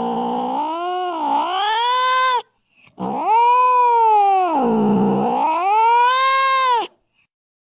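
Domestic cat giving two long, drawn-out yowling meows. The first is already under way, wavers down and up in pitch and stops about two and a half seconds in. The second starts half a second later, sinks low in the middle, rises again and cuts off about a second before the end.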